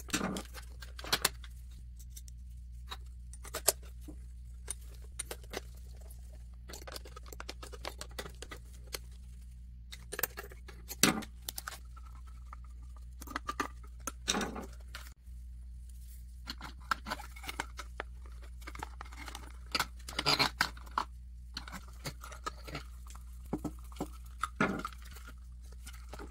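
Irregular small clicks, scrapes and rustles of hand work: a screwdriver turning terminal screws in plastic lamp sockets and stiff wires being handled and bent. A steady low hum runs underneath.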